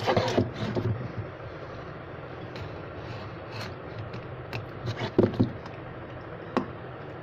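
Plastic shrink-wrap on a phone box being scraped and picked at with a small tool: scattered scratches and crinkles, busiest in the first second and again about five seconds in, over steady background noise.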